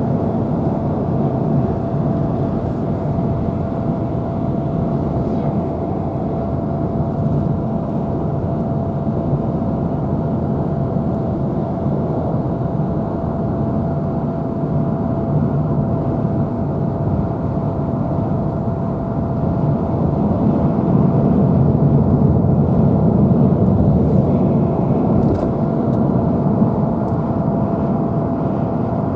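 Steady road and tyre noise with engine hum from a car driving along a highway, heard from inside the cabin, with a thin steady whine running through it. It grows a little louder for a few seconds about two-thirds of the way through.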